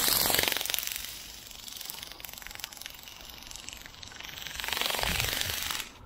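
A small RC flapping-wing bird's wings beat in a rapid rattling buzz. Wind gusts buffet the microphone, loudest at the start and again about five seconds in, and the sound drops off abruptly just before the end.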